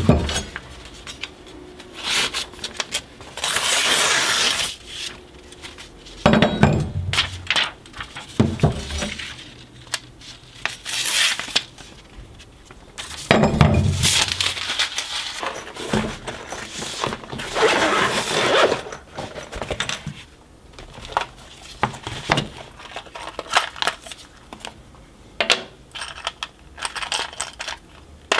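Workshop handling sounds: metal tools and parts clinking and knocking on the bench, with several short bursts of scraping or rubbing a second or so long.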